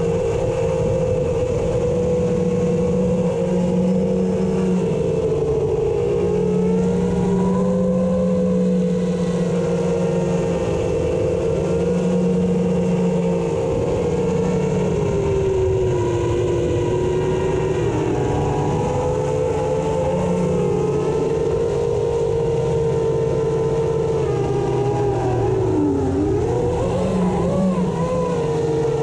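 Electric motor and propeller of a small FPV model aircraft in flight, running on a low battery: a steady whine whose pitch sags and recovers a few times, over wind rush.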